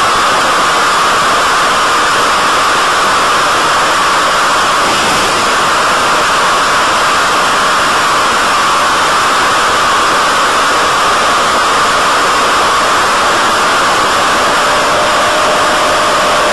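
Loud, steady rushing hiss on the audio of the BTE Delta Vortex flying wing's FPV video feed. It does not change in level, and a faint held tone comes in near the end.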